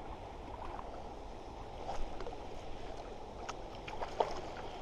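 Hooked trout splashing at the surface as it is drawn into a landing net: a few short splashes about two seconds in and again near the end.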